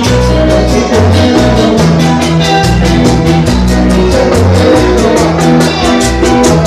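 A live band playing loud dance music: guitar over a bass line, with drums and cymbals keeping a quick, steady beat.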